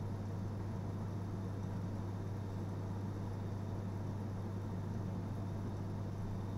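Steady low hum over faint background hiss, unchanging throughout.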